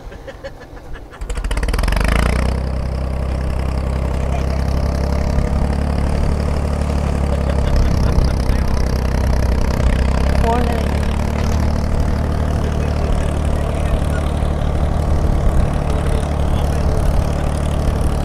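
Truck engine running with a steady low rumble, heard from on board a ride pulling riders out over a farm field; it starts up or pulls away about a second in and keeps going.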